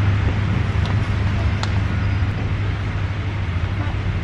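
Steady low rumble of a wire shopping trolley being pushed along a store floor, with a couple of faint clicks.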